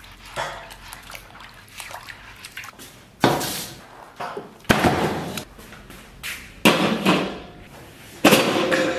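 Hands scrubbing a pig's head in a stainless steel basin of water: soft rubbing and sloshing, then four loud splashes a second or two apart as the head is rinsed and the water is tipped out.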